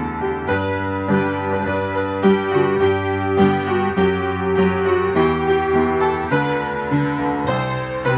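Solo piano playing a hymn tune in G major, a melody over full chords, at a steady marching pace in 4/4.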